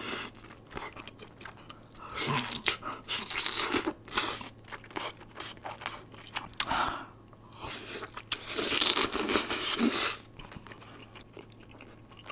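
A person biting and chewing crunchy food: two spells of loud, dense crunching, about two seconds in and again near eight and a half seconds, with quieter chewing clicks between.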